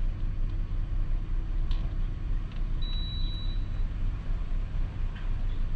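Lexus LS400's V8 idling, heard from inside the cabin as a steady low hum. A faint high beep lasting about a second comes about three seconds in.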